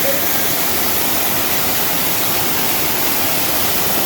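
Waterfall: water cascading in a steady, loud rush.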